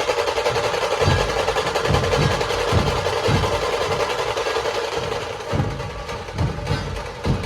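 Dhol tasha pathak playing: tasha snare drums in a fast unbroken roll over deep dhol drum beats. The playing eases a little in loudness near the end.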